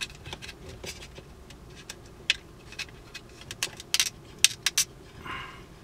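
Irregular sharp clicks and small rattles as a stiff car wiring connector is wiggled and pried loose from the shifter trim piece with a plastic pry tool, with a brief scrape near the end.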